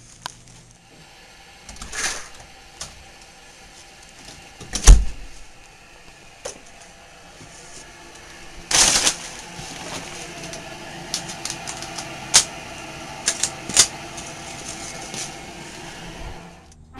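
Scattered knocks, clicks and rustles of someone walking and rummaging through stored objects, with one loud thump about five seconds in and a longer rustle around nine seconds.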